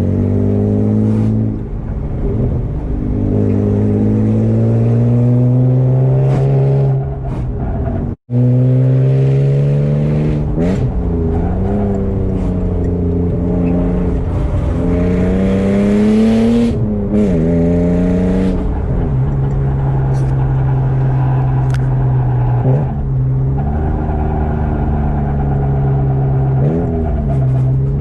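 BMW E36 engine revving hard through the gears, its pitch climbing and then falling at each shift or lift off the throttle. The sound cuts out abruptly for a moment about eight seconds in.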